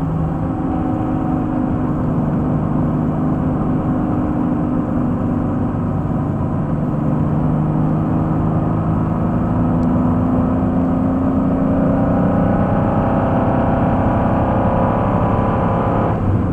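Pontiac Fiero's engine heard from inside the cabin, running hard under load on a racetrack, its pitch dipping just after the start and then climbing slowly through the second half. Steady road and wind noise underneath.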